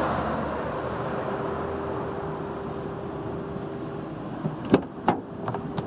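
A few sharp clicks of a Citroen C2's driver's door handle and latch as the door is opened, near the end, over a steady background hiss and faint hum.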